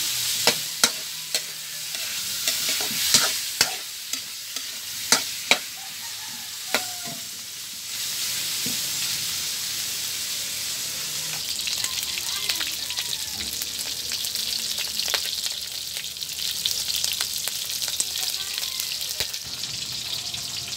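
Cubes of pork fat sizzling in a metal wok as their fat renders out, with sharp clinks and scrapes of a metal spatula against the wok through the first seven seconds or so. After that, a steady sizzle that grows denser.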